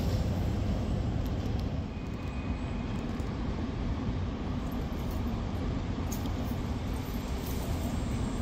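Steady low rumble of city street noise, with a brief faint high whine about two seconds in.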